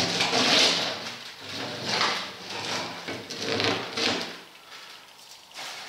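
Steel bead wire being dragged and torn out of the rubber bead of an Omsk OI-25 truck tyre: several rough scraping pulls in the first four seconds, then fainter scraping.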